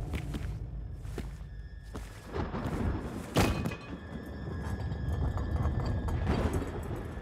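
Animated fight sound design: a deep low rumble under a handful of heavy thuds and metallic impacts, the sharpest a little past the middle.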